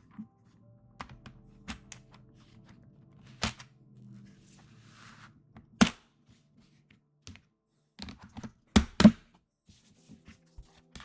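Scattered sharp clacks of plastic PBT keycaps being handled and set back in their tray. There are single knocks about three and a half and six seconds in, and a close, loudest pair about nine seconds in.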